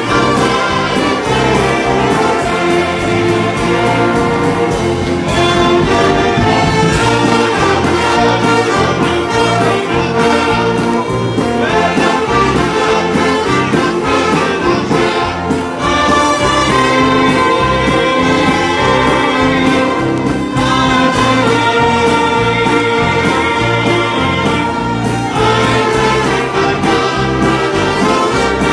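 A large church brass band, trumpets and trombones among it, playing a piece loudly, with a choir singing along.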